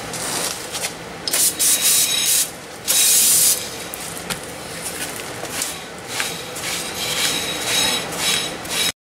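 Aerosol brake cleaner hissing onto a new brake rotor in a few bursts over the first three and a half seconds, the longest about three seconds in. After that a cloth rag rubs the rotor face, wiping off the solvent and the grease it loosened.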